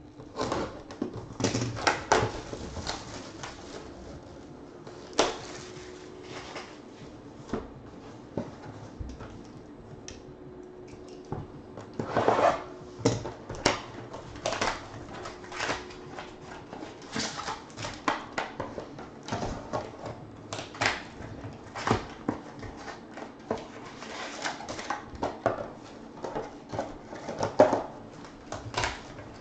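Sealed Topps Museum Collection trading-card box being slit open and its cellophane-wrapped packs pulled out and handled: irregular crinkling, rustling and tapping of plastic wrap and cardboard.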